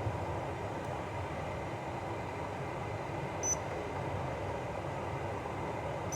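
Hisense dehumidifier running with a steady hum, its control panel beeping once about halfway through. At the end another beep, and the running noise drops sharply as part of the unit shuts off.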